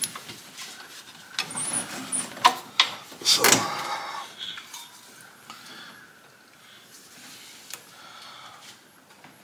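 Knocks, clicks and rubbing from fitting a serpentine drive belt over the engine's pulleys while the spring-loaded tensioner is held back with a long breaker bar. The sounds come in a cluster between about one and a half and three and a half seconds in, the loudest near the end of that run, then only a few faint clicks.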